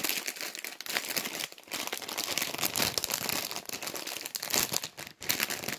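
Plastic crisp packet being handled: continuous crinkling and rustling of the wrapper, with two brief pauses.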